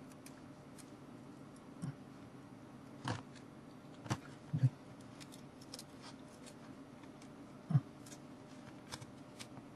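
Scattered small clicks and taps of tweezers and fingers handling a compact digital camera's circuit board and parts, with the sharpest ones a little past halfway and near the end, over a faint steady hum.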